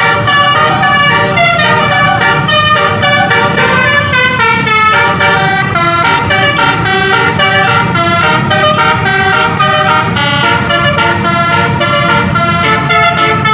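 Basuri telolet horn on the Rahma tour bus, a multi-tone musical horn, playing a quick tune of stepped notes without a break over the rumble of engine and road.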